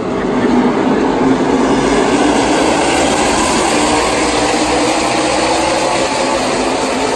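A field of NASCAR Xfinity Series stock cars running laps, their V8 engines blending into one loud, steady drone.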